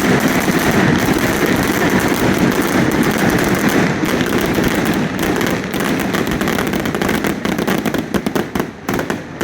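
Fireworks going off in a dense, continuous barrage of bangs and crackling. It thins into a few separate bangs near the end.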